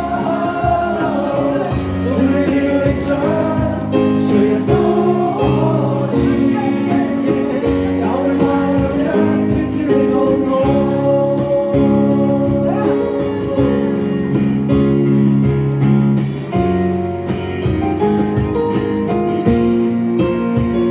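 Live band music with singing over held chords and a steady beat.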